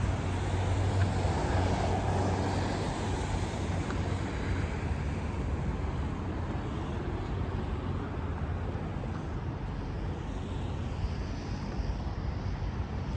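Steady rumble and hiss of vehicle and road noise, with wind on the microphone.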